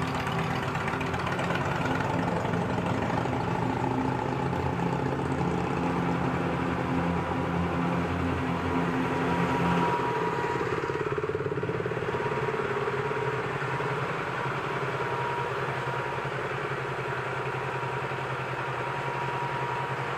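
A motorcycle engine idling steadily, with another motorcycle, a KTM Duke, riding slowly past about ten seconds in.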